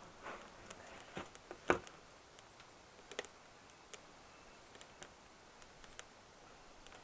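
Sticks burning and being handled in a BioLite Basecamp wood-burning stove: scattered sharp crackles and light wooden knocks, the loudest about two seconds in.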